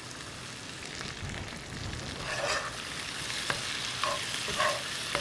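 Venison pieces sizzling in a molasses glaze that has cooked down and is nearly done, stirred with a metal spoon that scrapes and clicks against the skillet several times.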